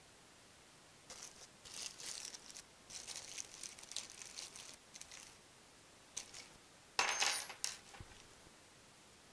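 Small steel Allen keys clinking and rattling against one another as they are picked through for the right size, in scattered light clinks over several seconds and a louder rattle about seven seconds in.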